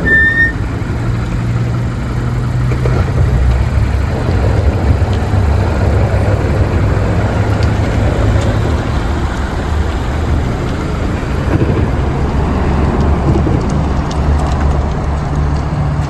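Car engine and road noise heard from inside the cabin while driving: a steady low hum under an even rushing noise.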